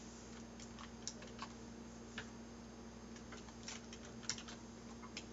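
Unhurried typing on a computer keyboard: single key clicks, irregular, about two a second, over a faint steady electrical hum.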